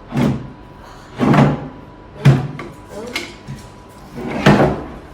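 An old wooden table being handled and taken apart: about five wooden knocks and bumps, a second or so apart.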